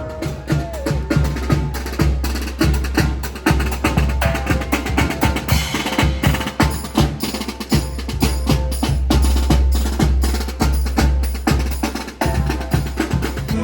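Percussive music with a steady beat: quick wood-block-like clicks and drum hits over a heavy bass.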